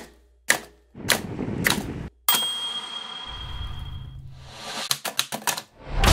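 Edited intro sound design: sharp clanging hits about every half second, then a thin steady high tone over a low hum, then a quick run of clicks and a rising whoosh near the end.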